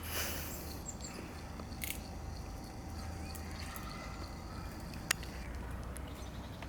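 A few sharp, isolated clicks and faint crackles over a low outdoor rumble, the loudest click about five seconds in.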